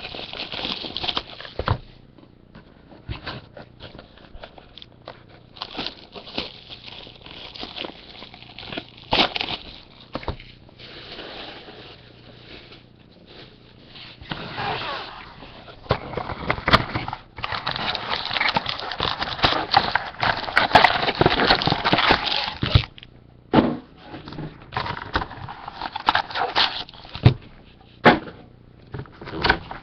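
Trading card packs and boxes being opened and handled: wrappers crinkling and tearing, with cards rustling and clicking, in irregular spells that are busiest past the middle.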